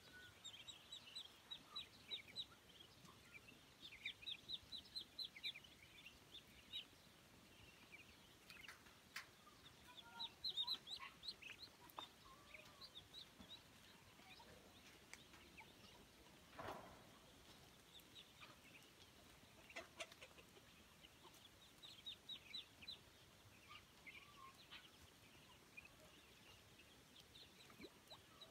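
A flock of ducklings and chicks peeping, short high peeps coming in quick clusters again and again, with a few clucks from the grown poultry and one longer, lower call about two-thirds of the way through.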